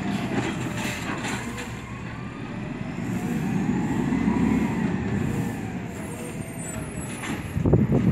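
Automated side-loader garbage truck's diesel engine running as the truck pulls away. The engine note swells and glides up and down as it accelerates. A few sharp knocks come near the end.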